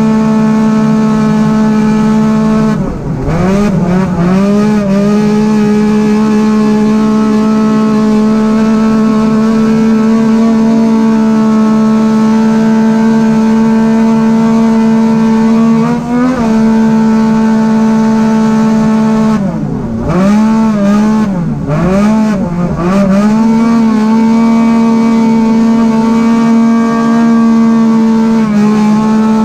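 An Arctic Cat race UTV's engine heard from inside the cab, held at high revs at a near-steady pitch. It dips and climbs back as the throttle is lifted and reapplied, once about 3 s in and several times in quick succession around 20 to 23 s.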